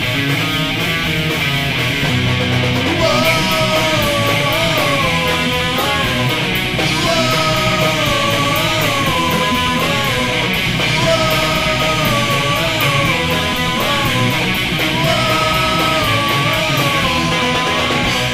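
Skate-punk rock song: distorted electric guitars over drums and cymbals, loud and steady. About three seconds in a melodic lead line with pitch bends enters and repeats in phrases of roughly four seconds.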